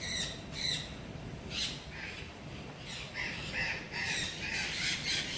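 Parrots squawking, a run of harsh calls about every half second that come thicker in the second half.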